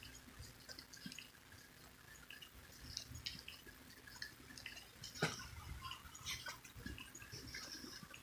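Marker tip squeaking and scratching on a surface in short strokes while writing a tag, faint, with one sharper click about five seconds in.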